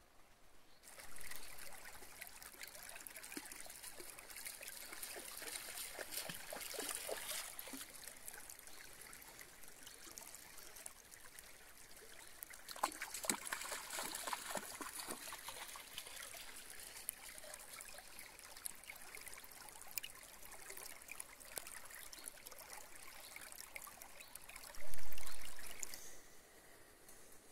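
Shallow river rippling and trickling over stones, with splashing as a dog wades through the water. A brief low rumble near the end.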